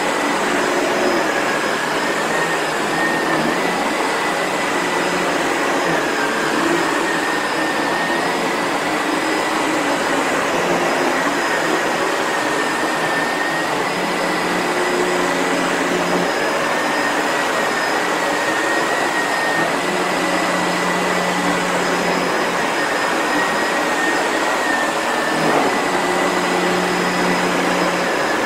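Sebo Felix vacuum cleaner running at full power: a steady rush of air with a high motor whine that dips slightly in pitch now and then, and a lower hum that comes and goes.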